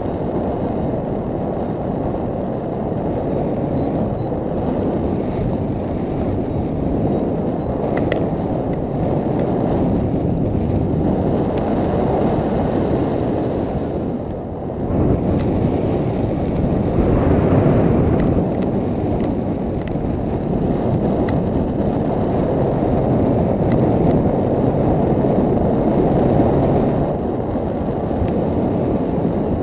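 Airflow buffeting the microphone of a foot-mounted GoPro Hero2 during a paraglider flight: a steady low rumble of wind noise that swells and eases every few seconds.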